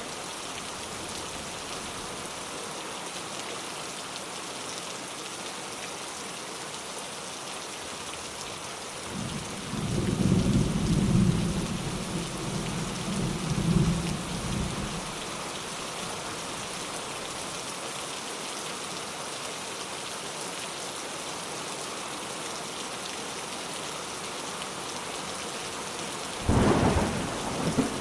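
Steady rain, with a low rumble of thunder rolling in about nine seconds in and lasting some six seconds, and another clap of thunder starting near the end.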